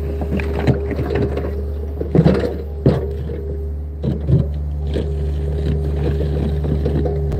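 John Deere compact excavator's diesel engine running steadily under hydraulic work while its bucket scrapes and drags through dirt and rocks, with a series of clunks and knocks, the loudest about two, three and four seconds in.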